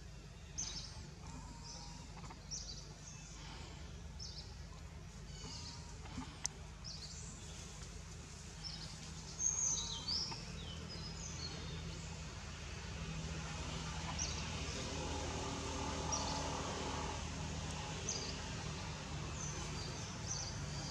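Birds chirping, short high calls repeated many times throughout, over a steady low background noise.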